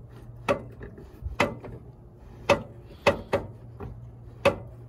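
1958 Chevy door window being rolled down, its window regulator and glass giving a string of sharp clicks and clunks at uneven intervals as the glass travels down the door.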